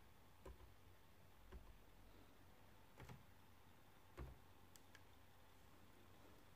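Faint, scattered taps of digits being entered on a computer, about half a dozen sharp clicks at uneven intervals over near-silent room tone.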